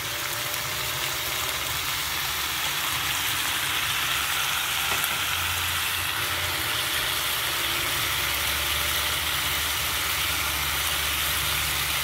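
Chicken pieces sizzling steadily in hot oil in a pot, being sautéed.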